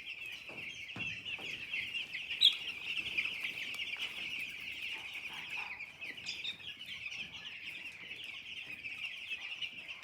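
A flock of week-old poultry chicks peeping continuously in a dense chorus of many overlapping high cheeps, with one brief louder sound about two and a half seconds in.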